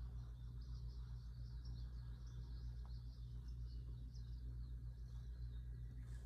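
Small birds chirping and twittering without a break: many short, quick high chirps overlapping, over a steady low hum.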